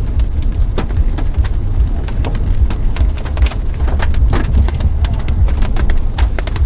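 Hail and rain striking the car, heard as irregular sharp knocks over a steady low noise.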